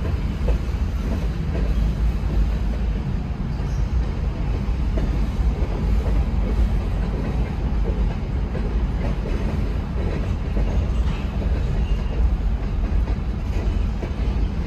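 Freight train of covered hopper cars rolling past: a steady low rumble of steel wheels on the rails with scattered clicks, heard from inside a car.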